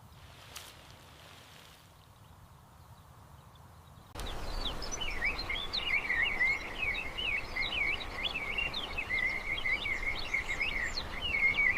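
Faint background for about four seconds, then a steady hiss starts suddenly, with a continuous run of fast, bird-like high chirps and warbles over it.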